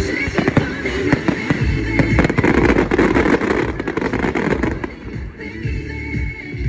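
Aerial fireworks banging and crackling in rapid succession over loud music, thinning out about five seconds in.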